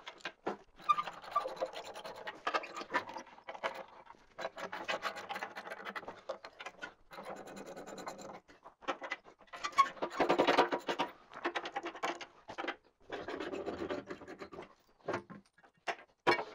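Ratcheting socket wrench clicking in repeated bursts of a second or two as the hammer mill's 3/4-inch armor bolts are worked loose.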